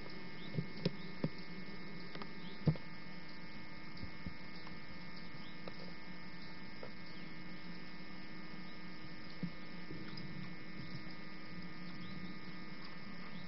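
Steady electrical hum with several faint steady tones above it, the kind of hum carried on an old analog camcorder recording. A few soft clicks come in the first three seconds, the strongest at just under three seconds, and one more about nine seconds in.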